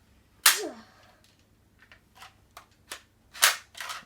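Spring-powered Nerf shotgun blaster firing: a sharp snap about half a second in, then a second short, loud sound near the end, with small plastic clicks in between.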